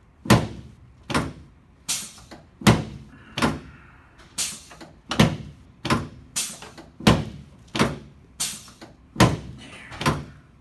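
A steady series of sharp thuds from a chiropractic treatment table as the patient's low back is worked, about one every three-quarters of a second.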